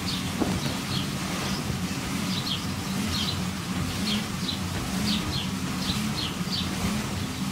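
Steady low rumble of an inflatable bouncy castle's electric air blower running, with a small bird chirping over it in short falling chirps, about two a second.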